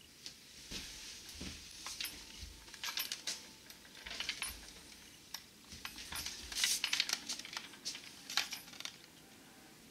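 Handling noise of a glass screen protector and a black airsoft shotgun: irregular small clicks, knocks and rattles, busiest about two thirds of the way in.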